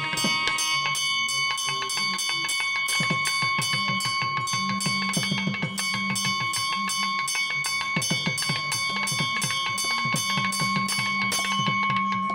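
Temple bells ringing continuously in rapid, even strokes, about five a second, with drum beats underneath during a pooja abhishekam.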